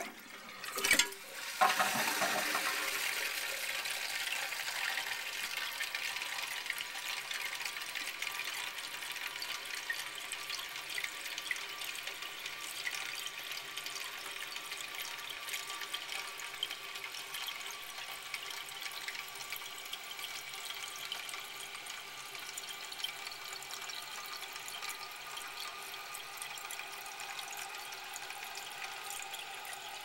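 An older Toto Ultramax toilet being flushed with its tank lid off. A sharp knock comes about a second in, then the tank water rushes out through the flapper. After that the fill valve hisses steadily as the tank refills.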